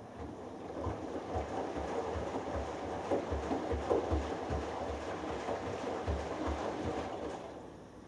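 Hoover Dynamic Next DXA610IW3 washing machine's drum turning in the wash phase of a delicates cycle. Water and laundry slosh inside it with a run of low thuds about three times a second. The drum stops about seven and a half seconds in.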